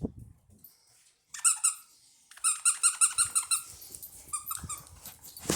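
Squeaker dog toy squeaking over and over as Labrador puppies bite on it: a short run of squeaks, then a quick series of several squeaks a second, and a few more later, with a knock at the very end.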